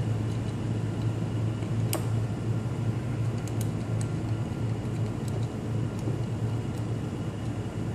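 Steady low hum with a few faint clicks and taps, the clearest about two seconds in, from a threaded GPS antenna connector being screwed onto a small adapter box by hand.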